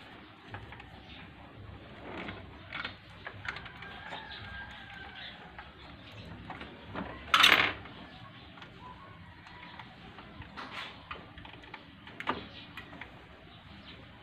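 Hands working a rubber drive belt onto a scooter's CVT pulley and clutch: faint scrapes and light clicks of the belt and metal parts, with one louder sharp clack about seven seconds in.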